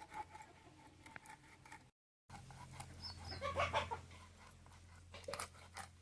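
Chicken clucking: a cluster of short calls in the middle and another brief burst near the end. The sound cuts out completely for a moment about two seconds in.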